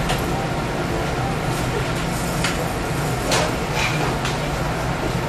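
Shop room tone: a steady low hum with the faint murmur of other shoppers' voices, and a few small clicks or knocks about halfway through.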